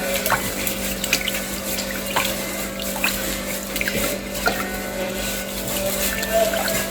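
Tap water running into a sink as dishes are washed, with scattered small clinks.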